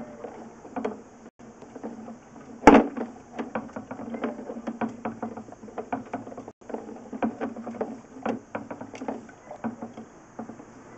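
Sewer inspection camera's push cable being fed down the drain line: a run of irregular clicks and knocks, several a second, with one sharp, loud knock nearly three seconds in.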